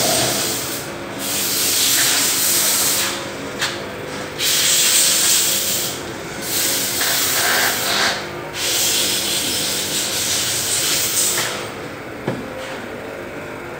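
Open six-speed riding-mower transmission running, its gears turning in oil: a steady whir with a loud hiss that starts and stops several times, dying down near the end.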